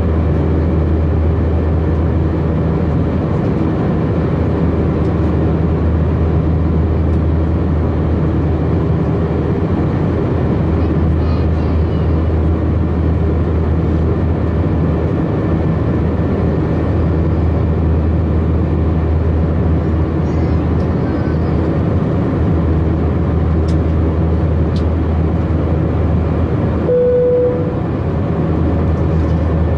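Steady cabin drone of an Airbus A319 in flight, its IAE V2522-A5 turbofan running with a low rumble and several steady tones, heard against the cabin window beside the engine. A short steady tone sounds about 27 s in, and a few faint ticks come around the middle.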